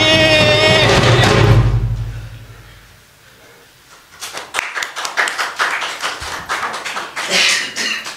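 Music with held, steady notes fades out over the first two seconds or so. After a short lull, irregular sharp taps and thumps follow.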